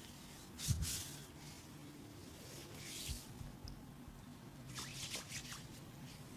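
Hands massaging bare skin: soft rubbing and squishing strokes, with a low thud about a second in and a quick run of short crisp pats or slaps around five seconds in.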